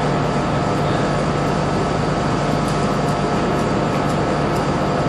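Steady hum and hiss of room noise, with no speech: even background noise carrying a few faint steady tones.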